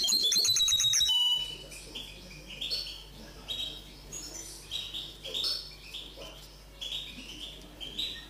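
Common linnet × canary hybrid singing. It opens with a loud, rapid trill in the first second, then runs on in a string of varied high twittering phrases.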